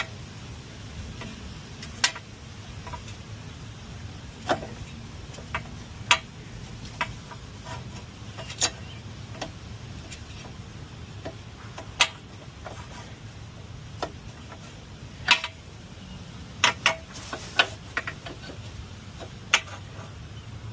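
Scattered sharp clicks and knocks, about a dozen at irregular intervals, over a low steady hum.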